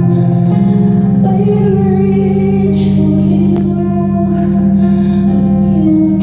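Live concert music heard through a phone in the audience: sustained keyboard chords over a low drone, shifting now and then to new held notes, with brief airy swells. This is the long instrumental intro of a song.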